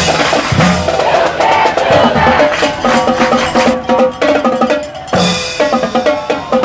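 Drum-heavy music: quick, dense drum strikes under a repeating pitched figure.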